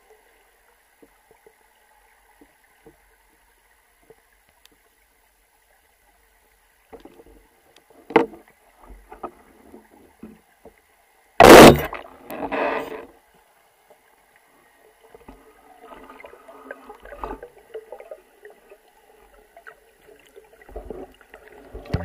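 Speargun fired underwater about eleven seconds in: a single sharp, loud crack followed a second later by a shorter rattle. It is heard through a waterproof camera housing, with faint clicks and knocks before and after against a faint steady hum.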